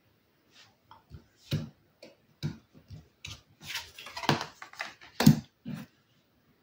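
Tarot cards being handled on a wooden table as one pair is taken away and the next laid down: an irregular string of short taps, slides and card snaps, busiest in the second half, with the loudest just after five seconds.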